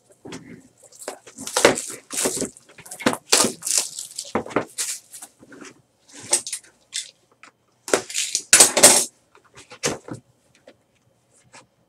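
Crinkling and tearing of plastic shrink wrap and handling of the cardboard box as a sealed trading-card hobby box is unwrapped and opened, in a series of short rustling, crackling bursts. The loudest stretch comes about eight and a half seconds in.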